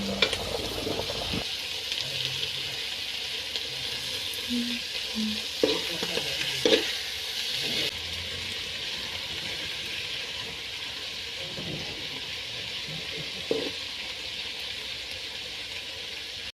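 Clams for clam chutney sizzling steadily as they fry in a hot pan, with a few knocks of a utensil against the pan partway through.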